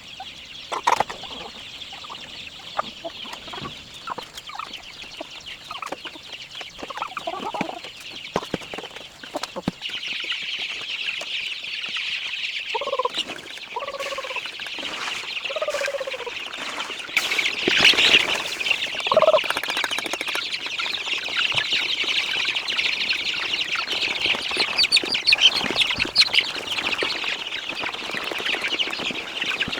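Chickens clucking with a few short calls, over a steady high-pitched drone that grows louder about ten seconds in, with scattered light knocks.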